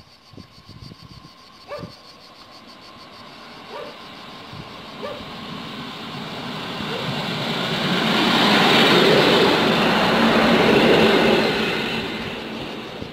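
A train approaching and passing, its noise building steadily to a peak about two-thirds of the way through and then falling away. A dog barks a few times during the first half.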